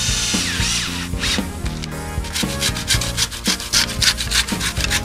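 A Makita cordless drill driving a screw into a wooden board, its whine trailing off in the first second or so. Then a Stanley handsaw cutting a wooden batten in quick, even strokes, about four or five a second.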